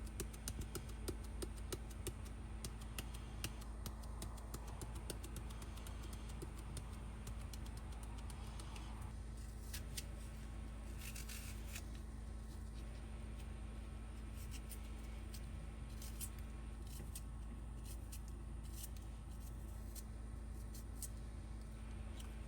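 Light kitchen handling noises: scattered soft clicks and taps over a steady low hum.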